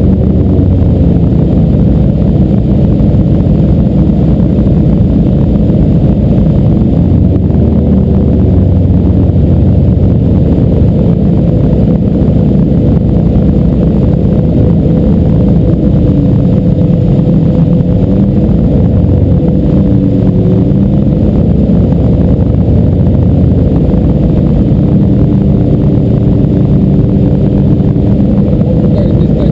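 Motorboat engine running steadily under way, its pitch wavering slightly about two-thirds of the way through.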